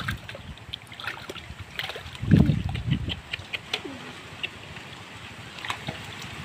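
Hands digging and squelching in wet paddy mud, with scattered small wet clicks and splashes and one louder low squelch about two seconds in.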